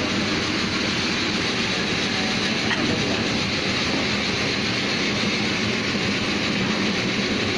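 Saree butta-cutting machine running, a steady even mechanical noise.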